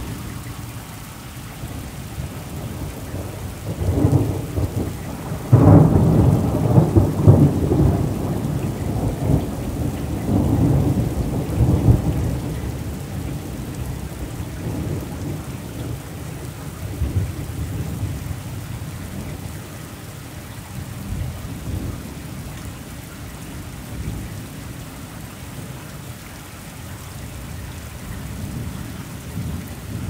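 Heavy rain falling steadily on grass and a paved road. A few seconds in, a long roll of thunder builds, peaks, and rumbles on for about eight seconds before fading into the rain.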